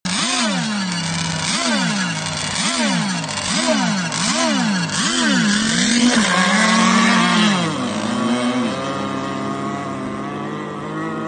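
Twin Zenoah two-stroke petrol engines of an RC racing catamaran revving in short throttle blips, about one a second. The engines are then held at higher revs as the boat is released onto the water. About three-quarters of the way through the note drops, and the engines settle into a steady, quieter drone as the boat runs away at speed.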